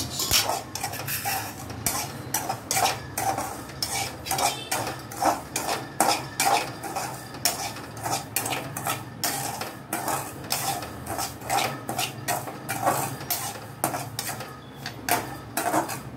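Metal spoon scraping and knocking against a metal kadai as dry semolina (rava) is stirred while it roasts, in quick repeated strokes about two or three a second.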